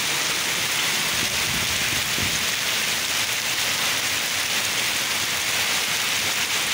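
Heavy rain falling steadily on wet paved ground, a dense, even hiss with no let-up.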